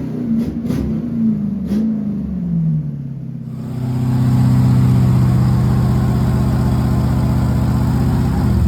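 Car engine revving, its pitch falling over the first few seconds with a few clicks. Then it is held at steady high revs and gets louder from about three and a half seconds in, and cuts off suddenly at the end.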